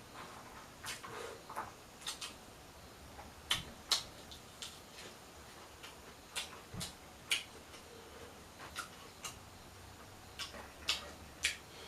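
Close-miked eating sounds, mukbang style: chewing, with irregular sharp mouth clicks and smacks several times a second at first and then more sparsely.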